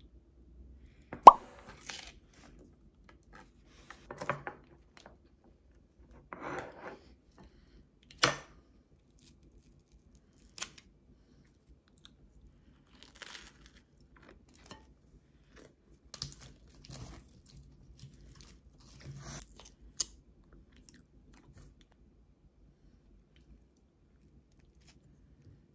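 A table knife cutting into a cold block of butter and scraping it onto crisp toasted bread halves, with scattered knocks, scrapes and crunches against the bread and plate. The loudest is a sharp click about a second in.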